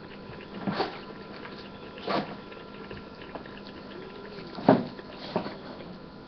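Four short knocks and bumps as someone moves about and handles things close to the webcam, the loudest about three-quarters of the way through, over a faint steady electrical hum.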